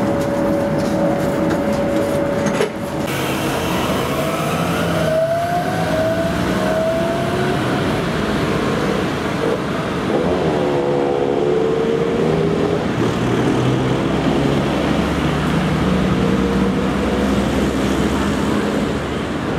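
Translohr rubber-tyred tram running: first a steady electric whine heard from inside the cab, then, after a sudden change about two and a half seconds in, the tram heard from the street as it approaches, its electric drive whine gliding up and down in pitch over a low rumble of tyres and street traffic.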